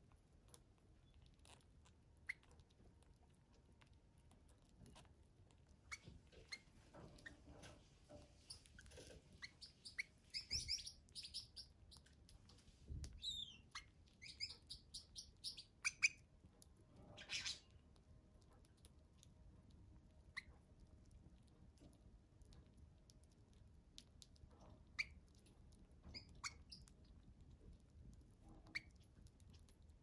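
Gouldian finches pecking and husking seed from an open hand: faint scattered clicks, with short high chirps, busiest between about ten and eighteen seconds in.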